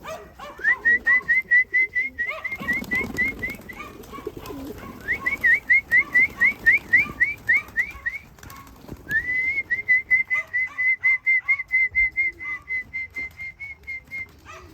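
Rapid, repeated high whistled notes, about five a second, in several long runs. The middle run is made of short rising chirps. This is a pigeon keeper's call whistle, bringing racing pigeons back into the loft.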